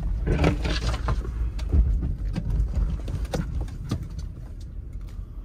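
Off-road vehicle crawling over a snowy forest track, heard from inside the cab: a steady low engine and tyre rumble with frequent short knocks and cracks as the tyres break through icy, crusted snow.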